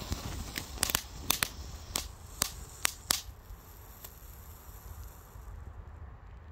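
Tiny Klasek DP1FR firework fountain burning, a hiss of sparks with about nine sharp crackling pops over the first three seconds. The hiss then thins and dies away as the fountain burns out.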